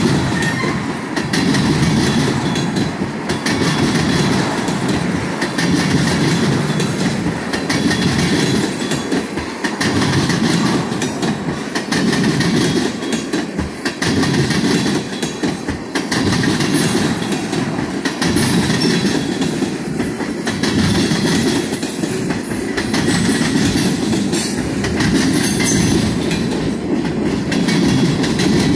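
CSX freight train of tank cars and centerbeam flatcars rolling steadily past: a continuous rumble of steel wheels on rail with rhythmic clickety-clack over the rail joints, and now and then a faint high wheel squeal.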